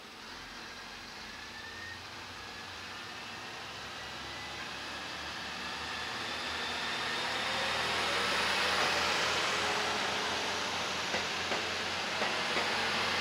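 JR East KiHa E130-series diesel railcar pulling away and accelerating past, its sound growing steadily louder with whines rising in pitch. A few sharp clicks from the wheels on the track come near the end.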